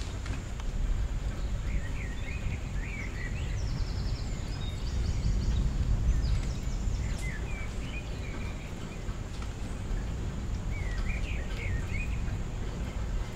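Steady low background rumble with scattered short high chirps in small groups, three times.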